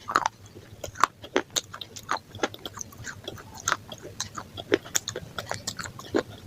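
A person chewing and biting crunchy food close to the microphone, with many short, sharp crunches at an uneven pace, several a second.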